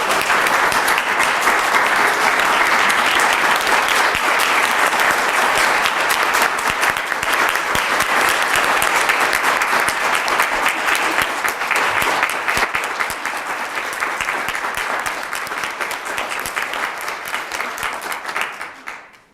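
A large audience applauding steadily, a dense sustained round of clapping that thins and dies away near the end.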